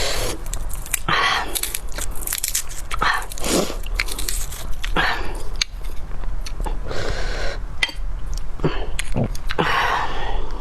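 A person eating bone marrow and garlic close to the microphone: irregular bites, chewing and wet mouth noises, with many sharp clicks between longer smacking sounds.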